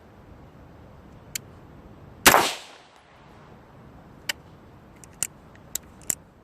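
A single 5.56 mm rifle shot about two seconds in, with a short echoing tail. Several small sharp clicks or clinks follow, spread over the next few seconds.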